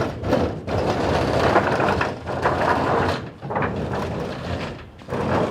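Crunching and scraping of the wind-torn porch roof's wood and roofing debris being worked loose and dragged across the house roof: an irregular crackling noise for about three seconds, easing off, then starting again near the end.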